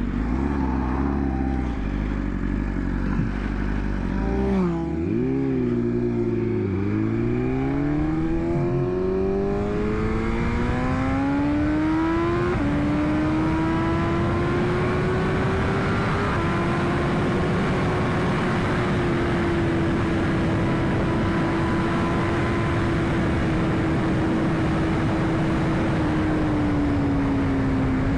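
2021 BMW S1000RR's inline-four engine pulling from low revs, its pitch climbing for several seconds, dropping once about twelve seconds in as it shifts up, then holding a near-steady note at speed. A steady rush of wind and road noise runs underneath.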